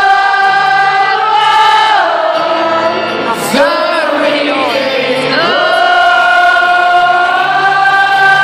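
Live concert singing: long held, wordless sung notes that glide down and back up twice, with many voices singing together in an arena.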